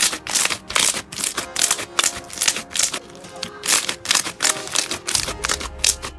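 Crunchy slime being squeezed and pressed, giving rapid, irregular crackling and popping clicks, over background music.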